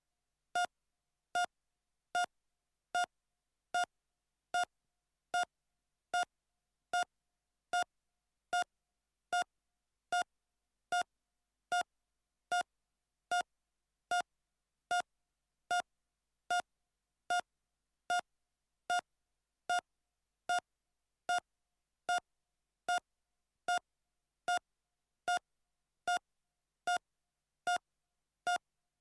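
Heart monitor beeping steadily at a normal heart rate, short single-pitched beeps about every 0.8 seconds, roughly 75 a minute.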